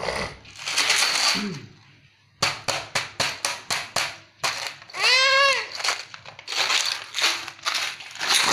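A thin plastic water bottle being squeezed and crumpled, giving quick runs of sharp crackling clicks, about four or five a second, between noisier crinkles. About five seconds in, a toddler gives a short, high cry that rises and falls.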